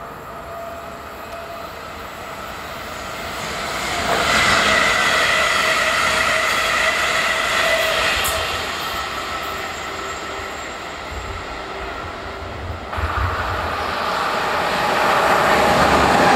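NS Sprinter Lighttrain electric multiple unit passing at speed, with its motor whine and wheel noise rising sharply about four seconds in and fading. After an abrupt change, an NS 1700-class electric locomotive hauling intercity coaches approaches, growing louder near the end.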